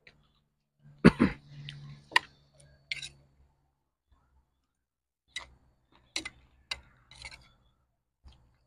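Close mouth sounds of chewing crunchy deep-fried June beetles, with scattered sharp clicks of a metal spoon against a plate. A loud throaty noise comes about a second in, followed by a low hum.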